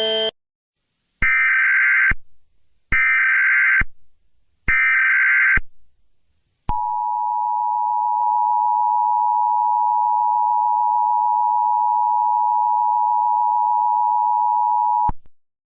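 Emergency Alert System tones: three short bursts of SAME header data tones, then the two-tone EAS attention signal, a steady dual tone held about eight seconds that cuts off suddenly, announcing a tornado warning.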